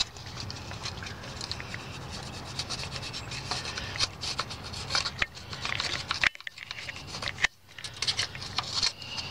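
Plastic gasket scraper scraping old, hardened RTV silicone sealer off the oil-pan mating surface of a 2012 Mazda3's Skyactiv-G engine block: a run of short, quick scraping strokes, with two brief pauses past the middle.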